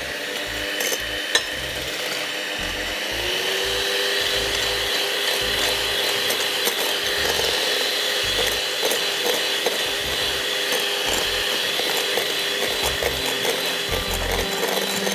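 Electric mixer running with a steady motor whine that steps up in pitch about three seconds in, as it switches to a higher speed, with the beaters rattling and clicking throughout.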